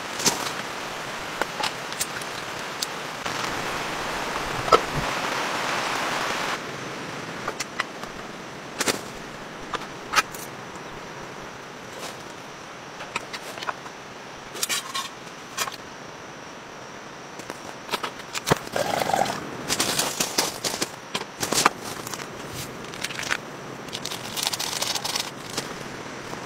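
Steady heavy rain hiss, louder for the first six seconds or so, with scattered sharp clicks and knocks.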